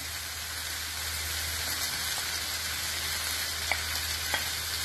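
Hot onion-masala gravy sizzling steadily in a nonstick frying pan, over a steady low hum. Two light clicks near the end as fried prawns are scraped off a plate into the pan.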